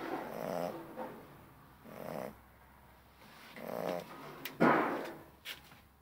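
Cane Corso puppy snoring in its sleep: four snores, one on each breath, the loudest about two-thirds of the way in.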